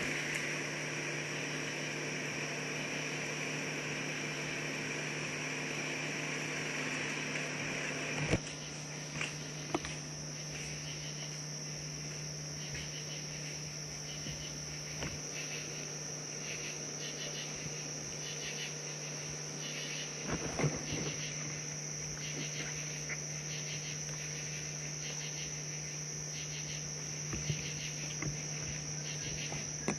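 Night insects, crickets, chirping in a steady chorus with evenly repeating pulses, over a constant low hum. A sharp click comes about eight seconds in.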